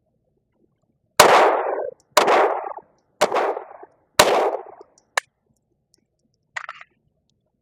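Four shots from a Glock G44 .22 LR pistol firing Fiocchi 40-grain rounds, about one a second, each with a short echoing tail; the pistol is cycling normally after an earlier stovepipe. A sharp click follows the last shot.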